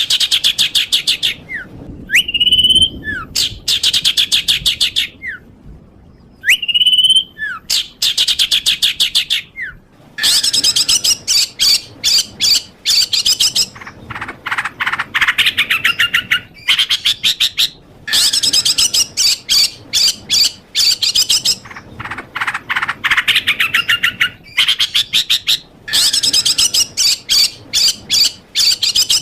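Recorded songbird song for training pet birds: three times a short rising-and-falling whistle is followed by a fast high trill, and from about a third of the way in the bird sings near-continuous runs of rapid trilling notes.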